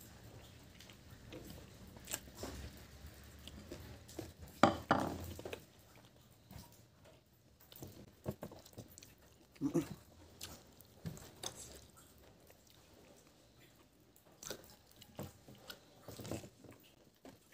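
A person chewing a mouthful of pork innards and rice close to the microphone: irregular chewing and biting sounds with small clicks, loudest about five seconds in.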